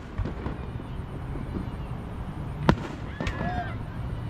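Fireworks going off: two sharp bangs, about two-thirds of the way in and half a second apart, over a steady low background rumble.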